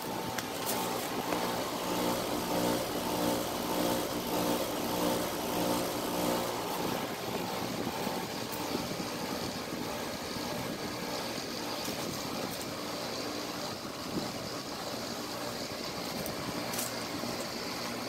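Rheem central air conditioner's outdoor condensing unit running steadily: a compressor hum under the rushing air of the condenser fan. The hum weakens a little about seven seconds in.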